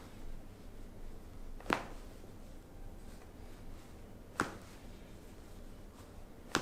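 Toe joints cracking during a chiropractic foot adjustment: three sharp pops a couple of seconds apart.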